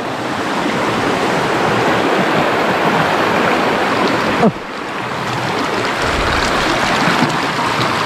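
Shallow rocky stream rushing close to the microphone, with boots wading and splashing through the water. The sound dips briefly about halfway through.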